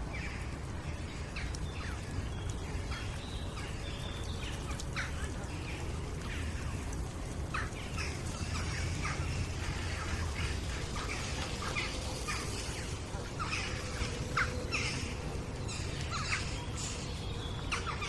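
Outdoor playground ambience: many birds chirping and calling, with children's voices in the distance and a steady low background rumble.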